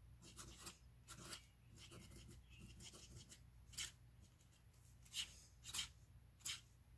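Faint scratching of a Wahl fountain pen's nib on lined paper as flourished cursive is written: short pen strokes, a few sharper ones in the second half.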